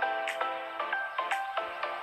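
Instrumental background music: bright pitched notes changing several times a second over a percussive hit about once a second.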